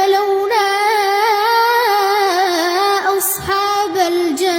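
A boy's voice reciting the Quran in melodic tajweed style, drawing out one long ornamented note that wavers up and down in pitch, with a brief break about three and a half seconds in.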